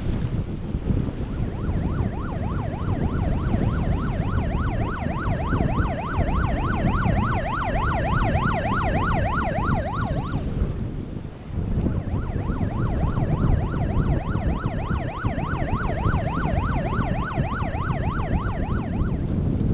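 Police boat siren on a fast yelp, about four sweeps up and down a second, sounding for about nine seconds, breaking off briefly, then sounding again for about seven seconds. Heavy wind rumble on the microphone runs underneath.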